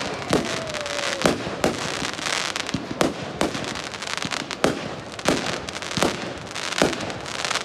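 Fireworks display: aerial shells bursting in a rapid series of loud bangs, about two a second, with a dense crackling from the glittering stars between them.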